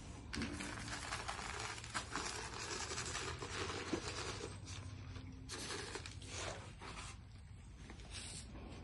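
Dense crackling and rustling as cat food is handed out by hand onto a concrete floor to a crowd of cats crowding in to eat; it dies down near the end.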